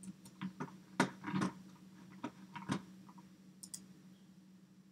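Computer mouse and keyboard keys clicking at irregular intervals, about a dozen sharp clicks, over a steady low hum.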